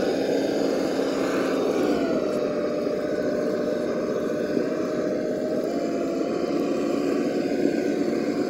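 Traxxas TRX-4 Land Rover Defender RC crawler's electric motor and geared drivetrain whining steadily as it crawls, the pitch dropping a little about two seconds in and rising again near six seconds.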